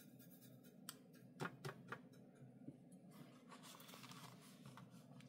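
Faint sounds of watercolour painting: four quick light clicks about a second in, as of a brush tapping against the paint tin or palette, then about a second of soft scratchy brushing as paint is worked on the palette or paper.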